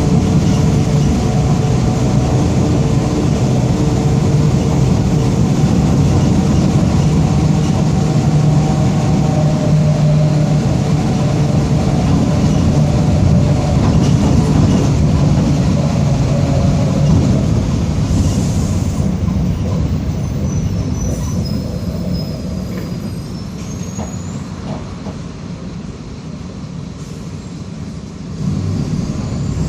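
Mercedes-Benz OF-1722M city bus under way, its engine and drivetrain running loud and steady with a droning growl from the worn differential. From about halfway it eases off and slows, with a short hiss of air and faint high squeals, then pulls away again near the end.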